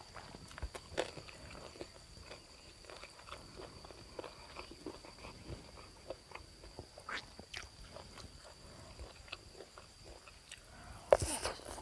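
Soft chewing and mouth sounds while eating. About eleven seconds in comes a sudden loud crunch, the crispy puffed skin of fried pork belly being bitten into.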